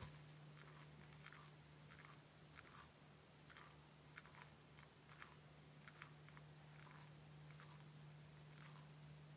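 Bearded dragon chewing a piece of star fruit: faint, irregular crunching bites, about one or two a second, over a steady low hum.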